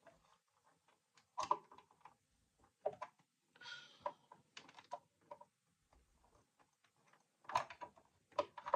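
Scattered light clicks and knocks with a brief rustle, from hands working on a sewing machine's bobbin area while the bobbin is taken out and refitted.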